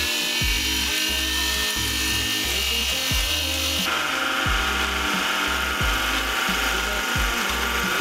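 Background music with a steady thumping beat, over a mini lathe cutting a spinning acetal plastic tube. The cutting makes a steady hiss that changes character abruptly about four seconds in.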